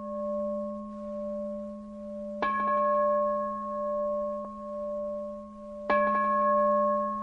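A bowl bell of the singing-bowl kind rings with a low hum that swells and fades about once a second. It is struck twice, about two and a half seconds in and again about three and a half seconds later, and each strike adds a brighter ring over the hum. It is the opening bell of a Buddhist mantra recitation.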